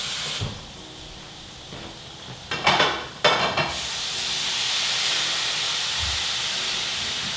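A few clattering knocks of pan and utensils, then a hot pan sizzling and hissing steadily as a dash of added water steams off around the asparagus.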